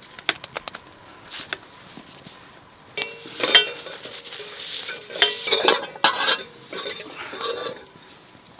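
Metal utensil clinking and scraping against metal cookware, as in stirring or handling food in a camp pot: light taps at first, then three louder bouts of clatter with a ringing metallic tone from about three seconds in.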